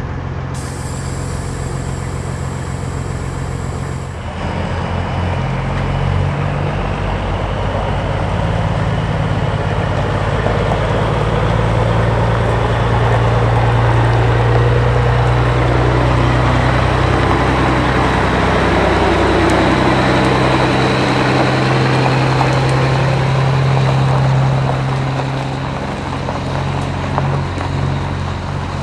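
Kenworth W900 semi truck's diesel engine running, first heard at idle, then from outside as the truck pulls away with a loaded reefer trailer. The engine grows louder, holds steady, then fades near the end.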